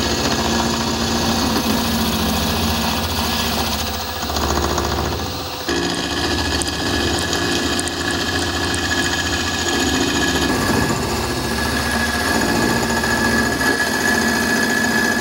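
Milling machine with an end mill side-cutting the face of a welded steel bracket: a steady, loud cutting noise with a fast, even chatter. About six seconds in the sound changes and a steady high whine joins it.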